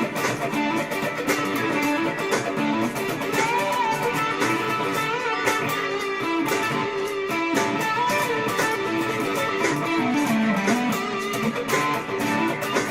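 Electric guitar played through a BOSS Power Stack distortion pedal, improvising a lead line in E minor with quick picked notes and a few string bends.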